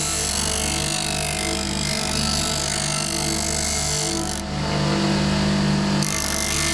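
Electric power tool motor running steadily, with a brief change in its sound about four and a half seconds in.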